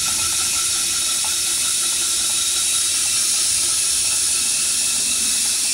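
Steady hiss from a gas-fired 1-inch scale Minnie live-steam traction engine in steam.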